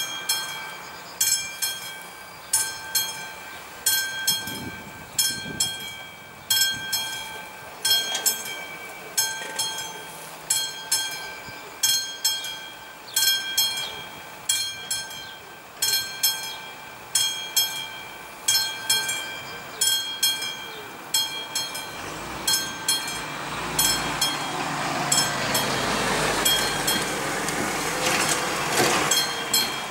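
Level-crossing warning bell ringing in a steady repeated beat, a ringing stroke about every second and a third, as the barriers come down for an approaching train. Near the end a lorry's engine and tyres grow loud as it passes close.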